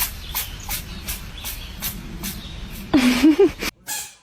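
A cat sneezing over and over in quick short bursts, about two and a half sneezes a second. A brief wavering cry comes about three seconds in, then one last burst before the sound cuts off.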